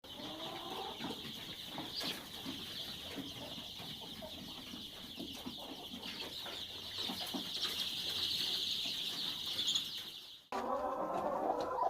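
A flock of chickens clucking, over a dense, steady high-pitched peeping. A little before the end the sound cuts abruptly to louder, busier clucking.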